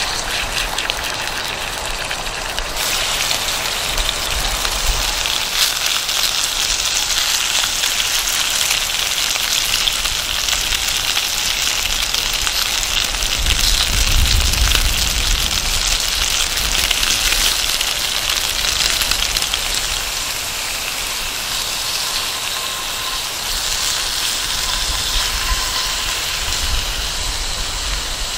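Chicken thighs sizzling in hot olive oil in a skillet over a wood fire, a steady crackling hiss. Gusts of wind rumble on the microphone, strongest about halfway through.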